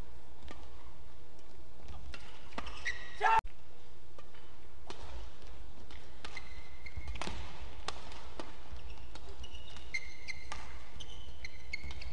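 Badminton doubles rally: rackets striking the shuttlecock in sharp cracks at irregular intervals. Short high squeaks come from shoes on the court mat, mostly in the second half, over a steady arena hum. The sound cuts out briefly a little over three seconds in.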